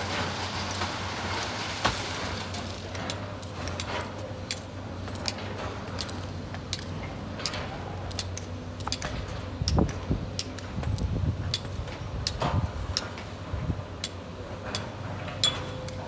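Sany hydraulic excavator's diesel engine running steadily as it loads rocky sand into a dump truck, with scattered sharp clinks and clatters of stones and a few heavier thumps in the second half.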